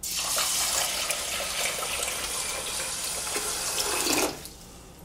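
Water poured in a steady stream from a jug into a stainless steel pot of rinsed long-grain rice, filling it for cooking; the pour stops a little past four seconds in.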